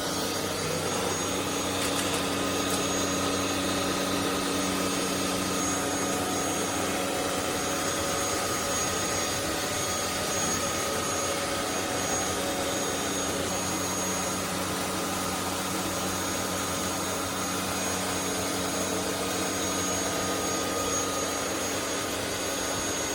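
Anyson cordless stick vacuum cleaner running steadily on its medium power setting, a constant motor whine with a few held tones, as it sucks up fluff.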